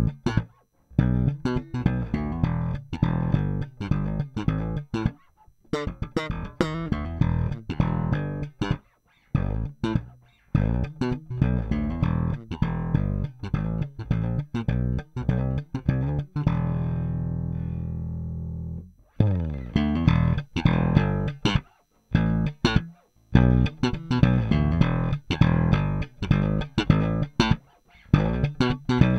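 Electric bass played alone in quick, sharp plucked phrases, with short silent breaks between them. Around the middle, one low note is left ringing for a couple of seconds before the playing picks up again.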